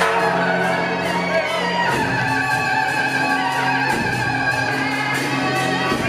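Music: held instrumental tones that shift every couple of seconds over a faint, regular percussive tick.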